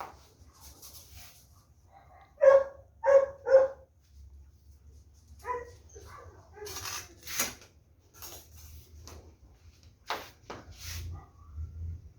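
A dog barks three times in quick succession, the loudest sounds here, with a few fainter, shorter sounds following later on.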